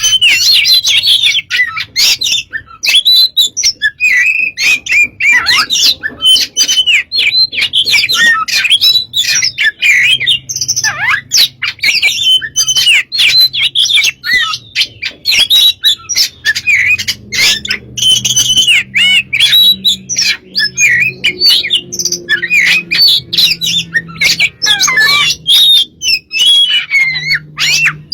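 Oriental magpie-robin (kacer) in full song: a rapid, unbroken run of varied whistled notes, glides and sharp clicks.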